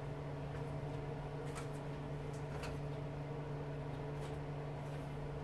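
A steady low hum with a few light clicks and ticks scattered through it, as of small metal parts being handled.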